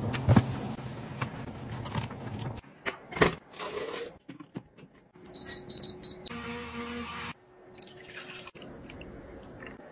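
Kitchen-appliance sounds in quick succession: handling clatter and a sharp click, then five quick high electronic beeps from an appliance's control panel, about a second of a blender-like motor noise, and liquid being poured softly near the end.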